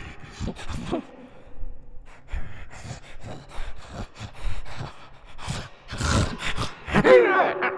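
A person's voice making monster sound effects: a string of short clicks and raspy, breathy gasps, then a wavering, pitch-bending cry about seven seconds in.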